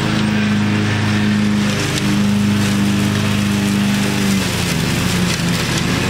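Riding lawn mower's engine running steadily while mowing, with the whir of the cutting deck; its pitch dips and wavers briefly about four and a half seconds in, then steadies again.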